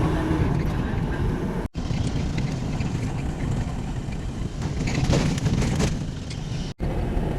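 Steady low rumble of a moving vehicle, broken by two sudden cuts where the footage is spliced.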